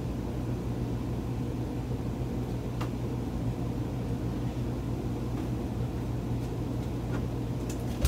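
Steady low hum of a running fan or motor, with a faint click about three seconds in.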